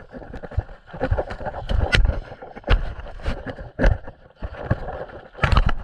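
A run of irregular heavy thumps and knocks aboard a small fishing boat at sea, over a steady rush of wind and water. The loudest knock comes near the end.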